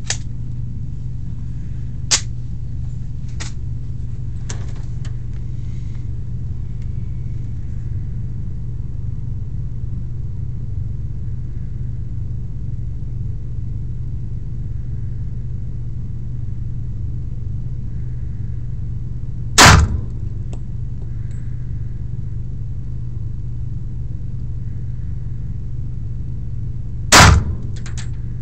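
Two pistol shots from a semi-automatic handgun, about seven and a half seconds apart, the second near the end, over a steady low hum. A few lighter sharp clicks come in the first five seconds.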